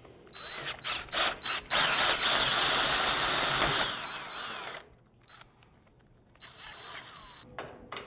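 Cordless drill turning a hole saw through a steel chassis tube, the last of the cut. It starts in a few short pulses, then runs steadily for about two seconds and winds down about five seconds in as the saw breaks through.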